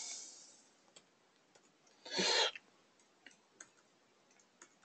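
A few faint, isolated clicks of computer keyboard keys, spaced irregularly, with one short rushing noise about two seconds in.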